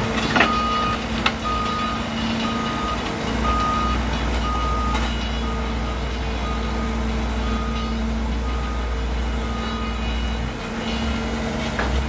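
Komatsu WB93R backhoe loader's diesel engine running as the backhoe digs, with two sharp knocks in the first couple of seconds. A reversing alarm beeps about once a second and fades out near the end.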